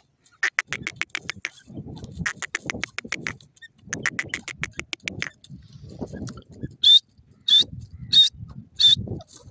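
Female grey francolin calling in rapid runs of clicking notes, three runs of about a second each. Near the end come four loud, short, high-pitched screeches, each less than a second after the last.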